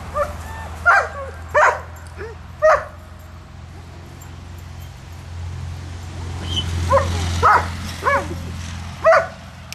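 A dog barking in short, sharp barks: three near the start, a pause, then a run of four in the second half.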